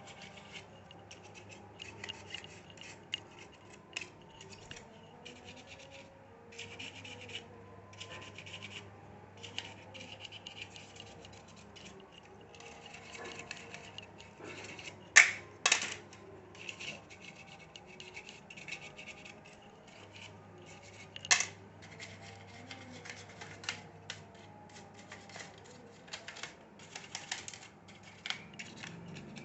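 An old brush scrubbing dust off a laptop cooling fan, in short, irregular bristle strokes. There are a few sharp clicks or knocks about halfway through.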